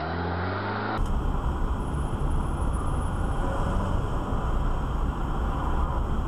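Steady rumble of road and engine noise from a moving car, heard through a dashcam microphone. About a second in, the sound changes abruptly to a denser, lower rumble.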